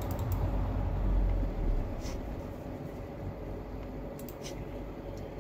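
Low background rumble, strongest in the first two seconds, with a few faint clicks near the start, about two seconds in and about four seconds in.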